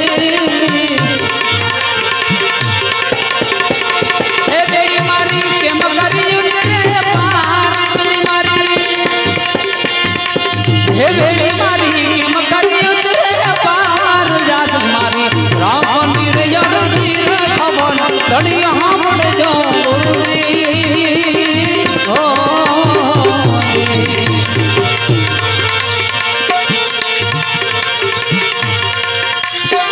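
Instrumental passage of a Gujarati bhajan: tabla keeping a steady beat under a wavering, gliding melody on accompanying instruments.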